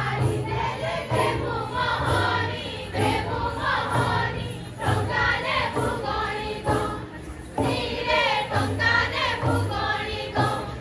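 Folk song sung by a group of voices, with drums keeping a steady beat, accompanying a tribal dance.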